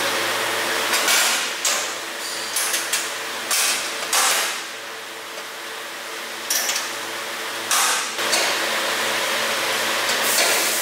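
Stainless steel machine with a belt-driven perforated drum, its motor running with a steady hum, while its metal cover and screen are handled, giving a series of sharp metallic knocks and clanks, about nine in all.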